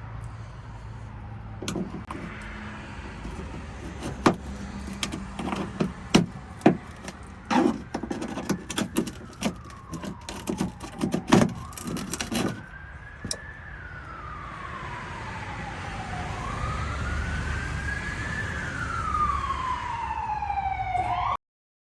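Plastic fender liner being pulled out of a car's wheel arch: a run of sharp clicks and knocks for the first dozen seconds. An emergency-vehicle siren wails from about eight seconds in, slowly rising and falling several times, and cuts off at the end.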